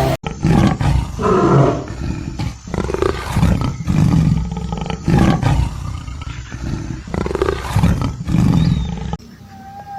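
A large animal roaring again and again, loud low calls about once a second. About nine seconds in it cuts off to a quieter wavering tone.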